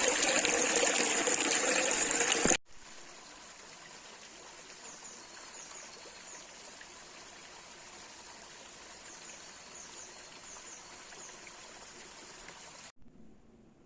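Running water of a stream, loud and steady, cutting off abruptly about two and a half seconds in. After it comes a much quieter stretch with faint, short, high chirps every so often.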